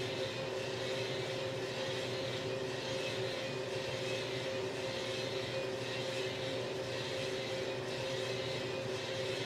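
Small drum coffee roaster running: a steady mechanical hum from its drum motor and fan, with an even hiss over it.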